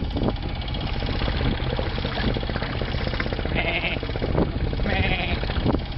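Sailboat's Volvo Penta inboard engine running with a rapid, even knocking beat.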